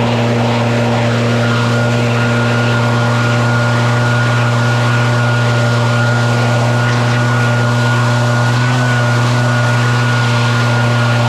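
Small powered machine running steadily at a constant speed: a loud, even hum with a thin high whine on top.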